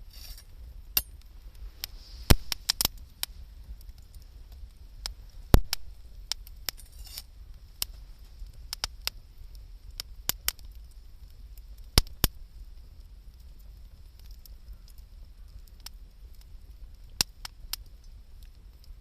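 Wood campfire crackling, with irregular sharp pops and snaps, a few of them much louder.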